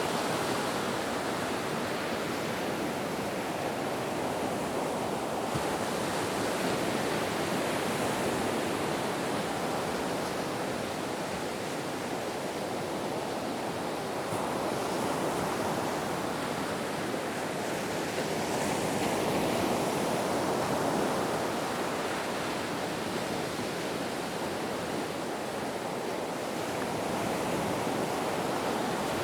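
Ocean waves breaking and washing on a beach, a continuous surf sound that swells and eases slowly every several seconds.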